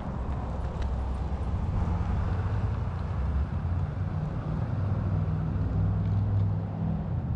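Street traffic: a motor vehicle's engine running close by, a steady low rumble that grows a little louder around six seconds in.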